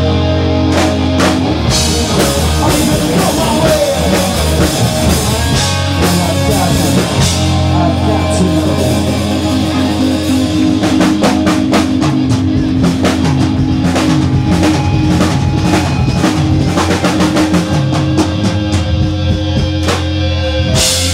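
Live rock band playing loud: a single-cutaway electric guitar over a drum kit, with the drumming turning into a dense run of rapid hits about halfway through.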